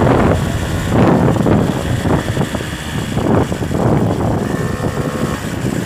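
Engine and road noise of a vehicle driving along a rough village road, heard from on board, with uneven surges in level.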